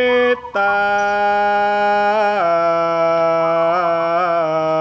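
Solo voice singing a Javanese kidung in slow, drawn-out tembang style: long held notes with small wavering ornaments. A short break comes just after the start, and the held pitch steps down a little past halfway.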